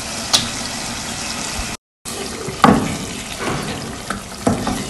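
A pot of spinach chicken curry sizzling with a steady hiss as cream is poured in. After a short break, a spatula knocks and scrapes in the pot as the cream is stirred in, the loudest knock about two and a half seconds in.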